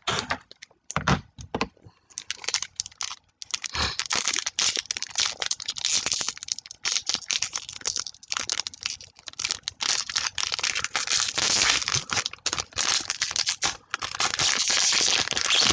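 A sealed baseball card pack wrapper crinkling and crackling as it is pulled and torn open by hand, in rapid bursts that grow denser and louder toward the end.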